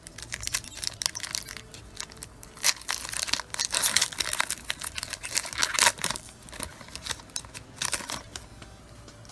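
Foil wrapper of a Pokémon TCG booster pack crinkling and tearing as it is ripped open and handled by hand: a dense run of sharp crackles, busiest in the middle.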